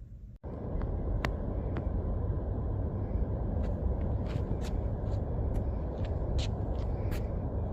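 Steady low rumble of wind buffeting an outdoor microphone, starting abruptly about half a second in, with scattered faint ticks above it.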